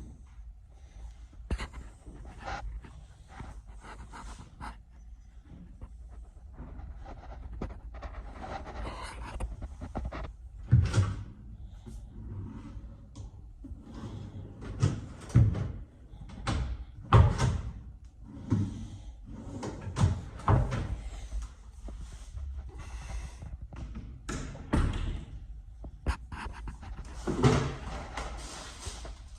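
Irregular knocks and thumps, a dozen or so, some sharp and loud, over a steady low hum.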